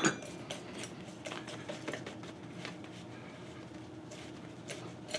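Faint clicks and rubbing from gloved hands turning a lock nut on the tapered adapter sleeve of a mounted roller bearing, hand-tightening it.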